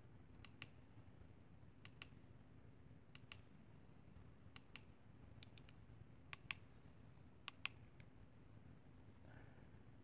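Buttons on a Vivitar compact digital camera clicking as it is stepped through its saved photos: small plastic clicks, mostly in close pairs, about one pair every second or so, the loudest about six and a half and seven and a half seconds in, over a faint steady hum.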